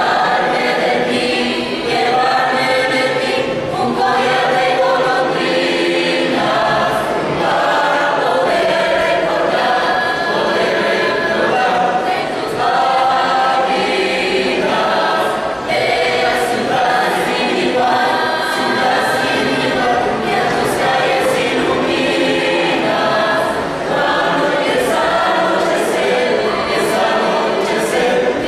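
Mixed choir of girls and boys singing a cappella in several parts, with no instruments, the chords held and changing steadily.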